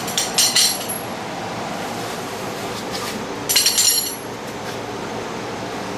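Small metal hardware clinking and ringing as it is handled, in two short flurries: one at the start and another about three and a half seconds in.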